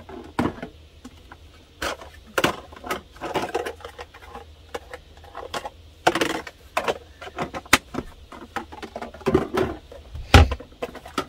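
Plastic food-storage containers and lids clicking and knocking as they are handled, in irregular taps and clatters, with one heavier thump about ten seconds in.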